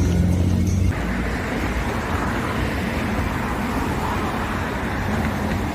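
Low engine-like vehicle rumble that stops abruptly about a second in, giving way to a steady rushing noise like road traffic.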